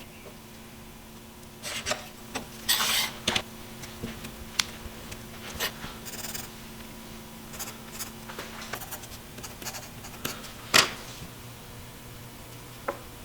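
Hand-tool work on walnut: short scrapes and scratches with scattered taps and clicks, and one sharp knock about 11 s in. A steady low hum stops about two-thirds of the way through.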